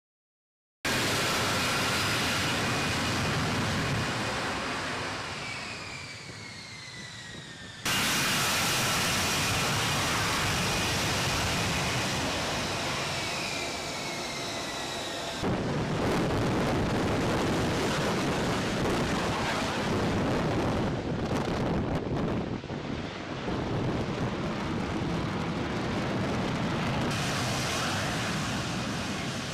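F-35B jet engine and lift fan running loud in short-take-off and vertical-landing mode, a steady rush of jet noise with high turbine whines sliding down in pitch. The sound jumps abruptly about 8 and 15 seconds in, where separate clips are joined.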